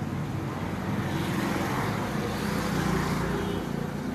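Steady street traffic noise, with a motor vehicle's engine running close by.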